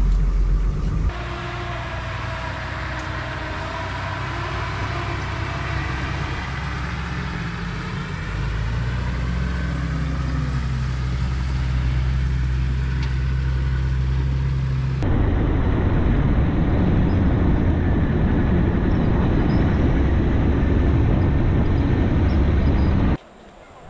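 4x4 vehicle engine running under load on an off-road trail, its pitch shifting up and down as the throttle changes. About halfway through there is an abrupt cut to a rougher, noisier rumble.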